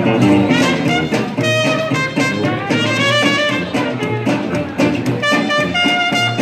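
Traditional New Orleans-style jazz band playing live, horns carrying held melody notes over a plucked-string and tuba rhythm.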